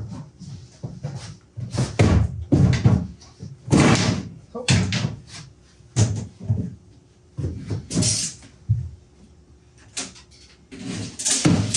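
Wooden cabinet being set down and shoved into place under a lathe stand: a run of irregular wooden knocks, thumps and scrapes.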